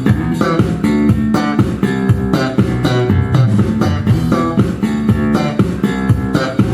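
Tobias Growler four-string electric bass played slap-style: a steady run of quick, sharp, percussive notes, several a second.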